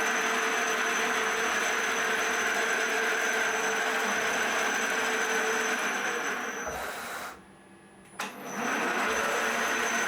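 Milling machine running under its new CNC drive with a steady mechanical noise and a thin high whine. It winds down and stops about seven seconds in, then starts again with a click about a second later.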